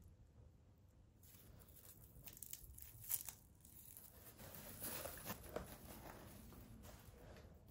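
Faint crackling and crinkling of dry white fir cone scales being rubbed and picked apart between fingers, with one sharper click about three seconds in and louder crackling from about four seconds on.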